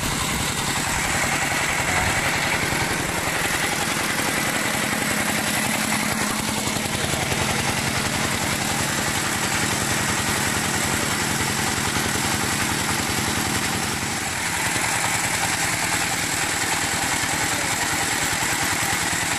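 Dong Feng single-cylinder diesel engine of a two-wheel tractor running steadily and loudly, driving a rice-tube puffing extruder. Its loudness dips briefly about fourteen seconds in.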